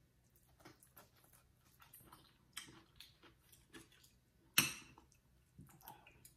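Soft eating sounds: quiet chewing and small scattered clicks of a spoon and fork on a plate, with one sharper clink of cutlery on the plate about four and a half seconds in.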